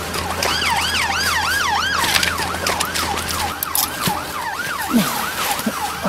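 Police siren on a fast yelp, wailing up and down about two and a half times a second. A second, higher siren joins briefly in the first couple of seconds, and scattered knocks sound over it, the sharpest about five seconds in.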